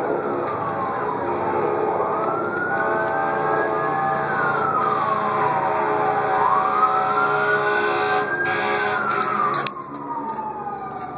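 Emergency vehicle siren on a slow wail, its pitch rising and falling about every four to five seconds. It responds to a large fire.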